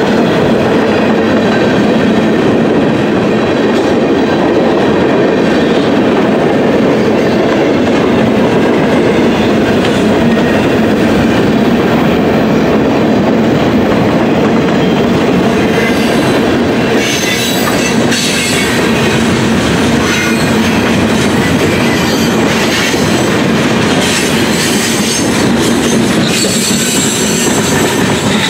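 Freight cars of a Norfolk Southern mixed freight train rolling past close by: a steady rumble of steel wheels on rail with clickety-clack over the rail joints. High wheel squeal joins in about halfway through.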